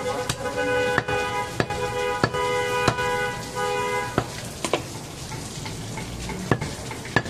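Butcher's cleaver knocking against a wooden chopping block while cutting goat meat: sharp knocks about every half second for the first four seconds, then fewer. A steady pitched tone from an unseen source sounds behind the knocks until about four seconds in.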